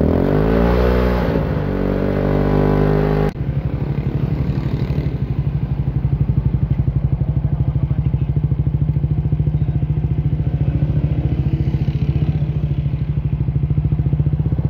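A Suzuki Smash 115's single-cylinder four-stroke engine, breathing through an aftermarket slip-on exhaust, is revved in neutral. Its pitch climbs and falls back about a second in and stays raised until about three seconds in. It then drops suddenly to a steady idle with an even putt for the rest.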